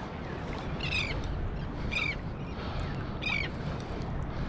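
A bird calling three times, short squawks that slide down in pitch, spaced one to one and a half seconds apart, over a steady low rush of wind and water.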